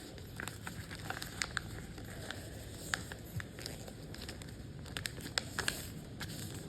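Sheet of paper being folded and creased by hand into a paper airplane wing: soft rustling with scattered small crackles, busiest around five seconds in.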